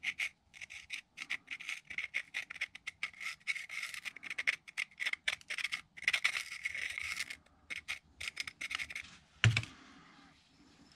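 Screwdriver tip scraping and scratching crud out of the body of a Massey Ferguson 35X tractor's mechanical fuel lift pump, in quick irregular strokes. A single sharp knock comes near the end.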